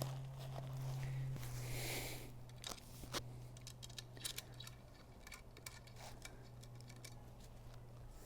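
Faint, scattered clicks and scrapes of a tablet stand being put together by hand: its parts are handled and its base plate is fitted with a Phillips-head screw. A steady low hum runs underneath.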